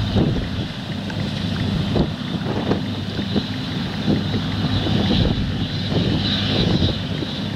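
John Deere combine harvester running steadily under load as its header cuts standing wheat: a low engine drone with a thin high whine from the machinery, and wind buffeting the microphone.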